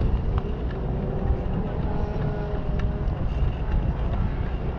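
Wind buffeting the microphone of a moving bike, a steady low rumble, with a faint steady engine drone and a few light ticks underneath.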